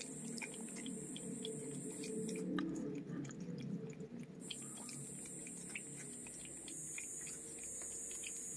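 A cat licking and chewing at a squeeze-tube cat treat: many small, quick wet mouth and tongue clicks, over a steady low hum.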